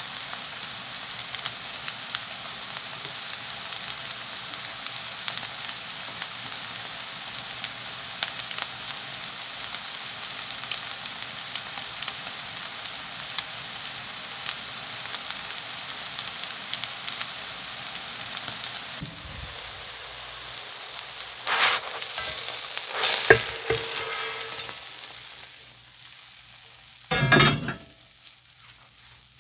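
Soft-tofu and zucchini pancake batter frying in oil in a pan: a steady hiss dotted with many small pops. After about nineteen seconds the frying quietens, and a few short clatters follow, the loudest near the end.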